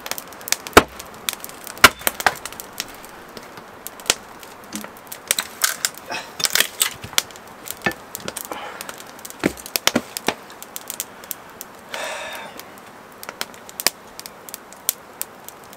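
Axe blows on wood: an irregular series of sharp knocks, some in quick clusters, with a short rasping scrape about twelve seconds in.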